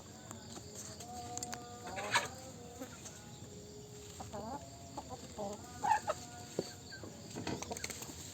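Several chickens clucking and calling over one another, a mix of short clucks and longer drawn-out notes.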